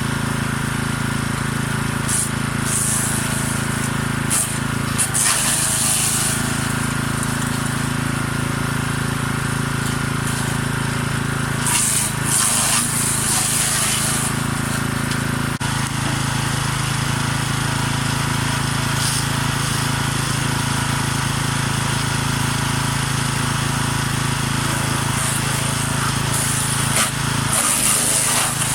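Forest Master FM6DD small petrol wood chipper running steadily, with louder bursts of high-pitched shredding noise about four times as elder branches are fed through and chipped.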